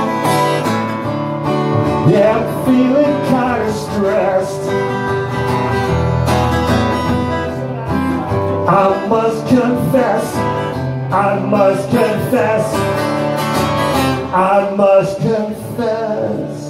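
Live music: a cutaway acoustic guitar strummed with a man singing into a microphone, punk-style solo performance through a small PA.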